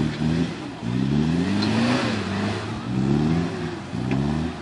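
Off-road 4x4 vehicle's engine revving in repeated rising surges, the note climbing several times, one surge lasting about a second, and falling back between them.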